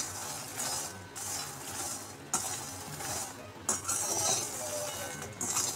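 Puffed makhana (fox nuts) being stirred in a metal pan, the dry seeds rustling and scraping against the metal in repeated sweeps as they finish roasting to crunchiness.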